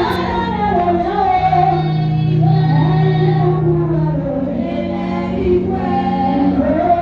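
Gospel music with a group of voices singing together, holding long notes over a steady low bass.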